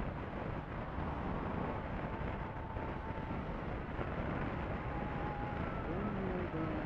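Motorcycle riding at steady cruising speed: wind rushing over the microphone together with the Honda CB500F's parallel-twin engine running, an even, unbroken noise.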